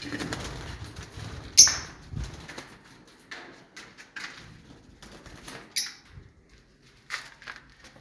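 Small parrots in an aviary, lovebirds among them, giving short shrill chirps: a loud one about a second and a half in, then more every second or so.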